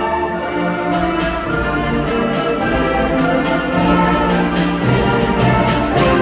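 Student concert band playing, with brass prominent over sustained chords and evenly repeated percussion strokes, about three a second, from about a second in.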